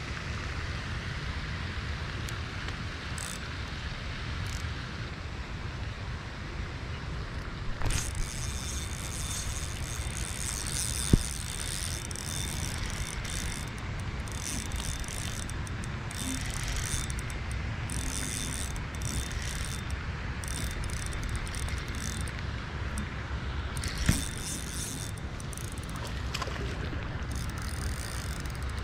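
Wind buffeting the microphone in a steady rumble while a spinning fishing reel is cranked, with a few sharp clicks, the loudest about eleven seconds in.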